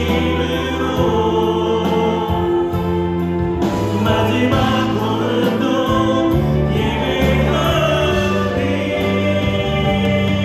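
Church praise-team choir singing a slow worship song together, backed by keyboard, electric guitar, bass guitar and drums. Voices hold long notes over a bass line that moves every second or so.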